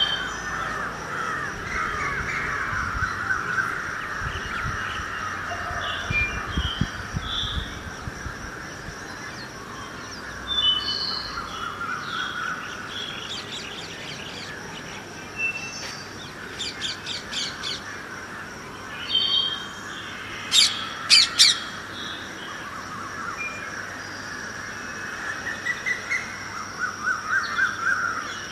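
Morning bird chorus: many birds chirping and calling, with two loud sharp calls a little after the twenty-second mark. A steady high-pitched hum runs underneath, and a low rumble of distant traffic comes through between about 6 and 8 seconds.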